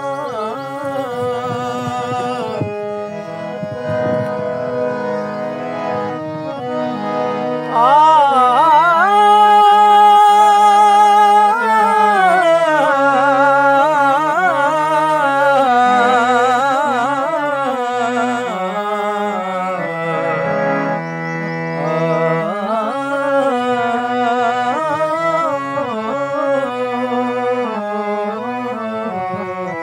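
A man singing long, ornamented held notes over the steady drone of a hand-pumped harmonium; the voice climbs and grows louder about eight seconds in.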